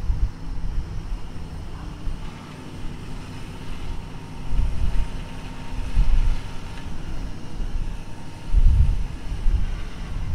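Flatbed tow truck's engine running to drive its winch while a car is eased down the tilted bed. A faint steady whine sits over a low rumble that swells and fades several times.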